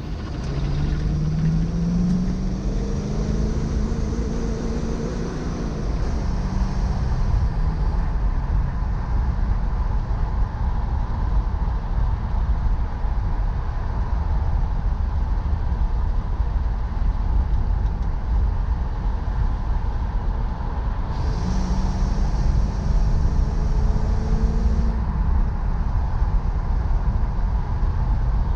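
1972 Buick Gran Sport's 350 V8 running on the road, a steady low rumble whose note rises as the car accelerates, once near the start and again about two-thirds of the way through. The exhaust is mild, not loud.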